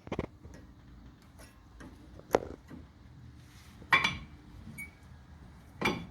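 Brake pads being fitted into the caliper bracket: a few separate sharp metallic clinks and clicks, the loudest about two and four seconds in, the second ringing briefly.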